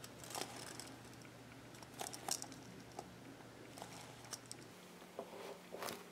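Faint handling of a soft polyurethane-foam squishy toy shaped like a coffee cup as it is squeezed and turned in the hands: scattered soft ticks and light taps, with a couple more near the end as it is set down on a table.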